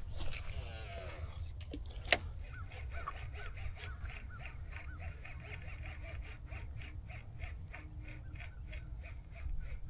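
Baitcasting reel being cranked on a retrieve, an even ticking at about four a second, with one sharp click about two seconds in.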